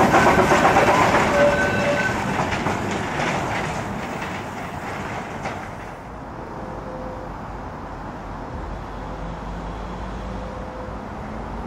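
Wren-class narrow-gauge steam locomotive and its coaches running and clattering over the track, with brief high squeals early on, fading as the train draws away. From about six seconds in only a faint low rumble remains.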